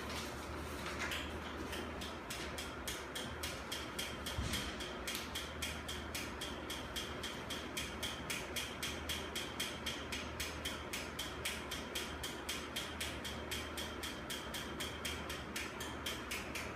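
Rapid, regular mechanical clicking, about four clicks a second, from a small hand-held device worked at the microphone. There is one louder thump about four and a half seconds in.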